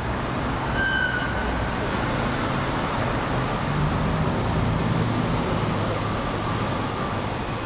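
Road traffic on a busy city street: cars and trucks passing in a steady rush of engine and tyre noise.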